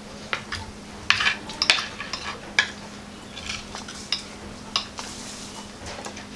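Metal knife and fork clinking and scraping on glazed clay plates during a meal: irregular sharp taps, with a quick cluster about a second in.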